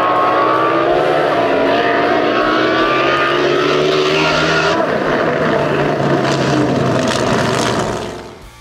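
Top fuel hydro drag boat's engine running loud, with several pitched tones that drop slightly and then hold steady over a rush of noise. The sound fades away near the end.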